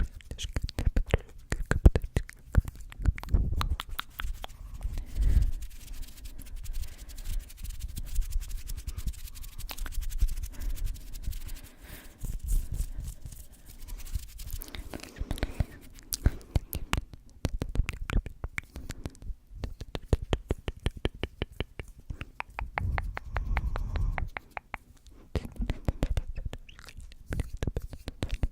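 Close-miked ASMR mouth and hand sounds: a fast, dense run of 'tk tk' clicks and taps, mixed with bits of unintelligible whispering.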